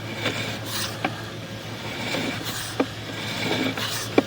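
Sewer inspection camera's push cable being worked through the line: irregular rubbing and scraping with three sharp clicks, over a steady low hum.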